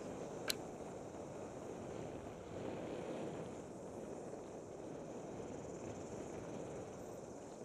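Mountain bike riding fast down a dirt singletrack: steady rushing noise of tyres rolling over the trail and wind on the bike-mounted microphone, with one sharp click about half a second in.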